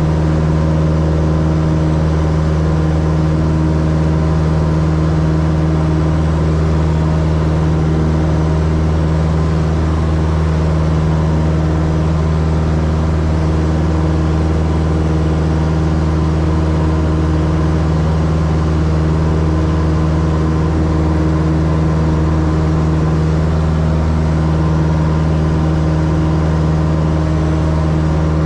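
Cessna 172's piston engine and propeller running steadily at takeoff power, heard inside the cabin, through the takeoff roll, liftoff and climb-out.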